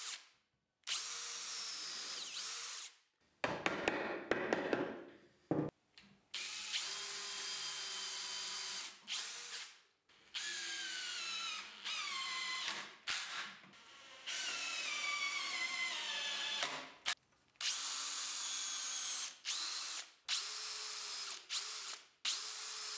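Cordless drill-driver drilling pilot holes and driving screws into hardwood, in about ten short bursts. The motor whine rises at each start and in the longer runs sinks in pitch as it takes the load. A quick run of clicks comes about four seconds in.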